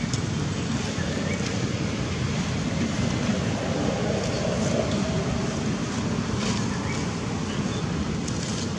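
Steady wind buffeting the microphone, a rumbling noise that rises and falls slightly, with a few faint clicks near the end.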